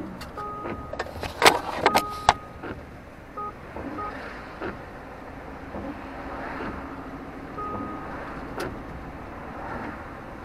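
Car driving, with steady road noise inside the vehicle. A few sharp knocks and rattles come about one and a half to two and a half seconds in, and short high beeps sound now and then.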